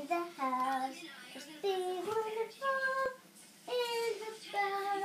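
A six-year-old girl singing unaccompanied, holding each note and stepping between pitches in short phrases with brief pauses.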